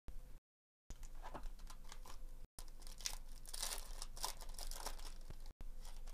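A foil Bowman baseball card pack being torn open and crinkled by hand. The crackling starts about a second in, is loudest in the middle, and stops shortly before the end.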